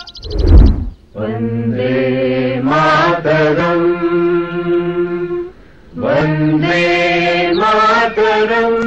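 A deep boom about half a second in, then solemn singing in long held notes, rising and falling in steps, with a short break in the middle.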